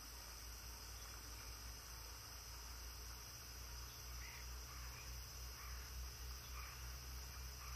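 Faint rural ambience: steady high insect buzzing over a low steady hum, with a few faint short chirps from about four seconds in.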